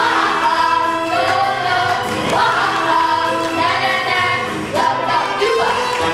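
A chorus of children singing together on held notes.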